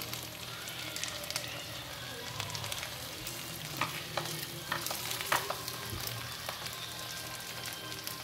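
Pork sisig sizzling in a nonstick frying pan as it is stirred and turned with spatulas, with a few sharp clicks of the spatulas against the pan about four to five seconds in.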